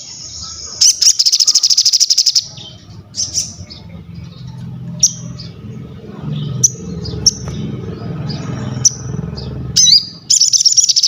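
Sogon songbird singing: two loud bursts of very fast repeated high notes, one soon after the start and one near the end, with single sharp high chirps between them. A low steady hum runs underneath through the middle.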